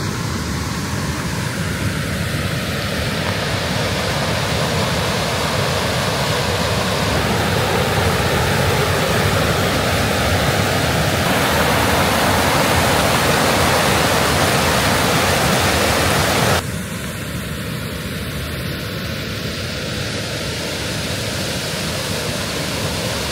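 Jemez River rushing over rocks and pouring through the travertine of Soda Dam: a steady rush of water, loudest in the middle and dropping suddenly to a softer rush about two-thirds of the way through.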